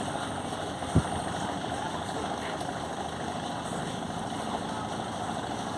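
A riverboat's diesel engine running steadily under way, with the hiss of water and wind, and a single short thump about a second in.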